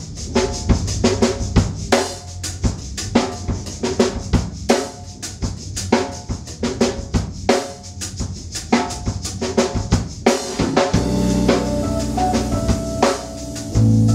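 A band's drum kit and percussion playing a busy groove of rapid hits. About ten seconds in, held keyboard chords and a low bass line come in under the drums and swell louder near the end.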